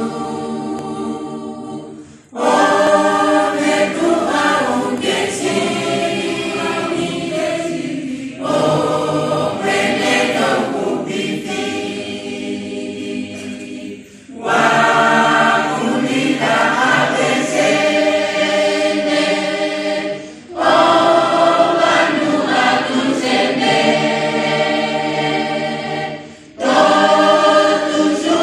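A church congregation singing a hymn together without instruments, in long phrases of about six seconds broken by short pauses for breath.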